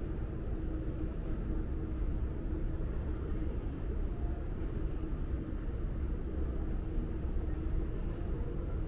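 Steady low rumble with a faint hum, the background noise of a large indoor space, with no distinct events.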